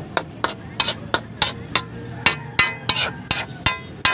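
A metal spoon knocking and scraping against a metal wok while stirring, about three sharp clinks a second, each with a brief metallic ring.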